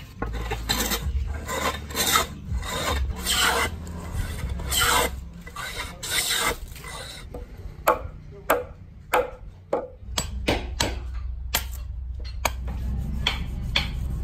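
A small hand plane shaving a wooden block in quick, rhythmic scraping strokes, then a string of about ten sharp hammer blows while a spoked wooden ox-cart wheel is assembled, and near the end a blade rubbed back and forth on a whetstone in fast strokes.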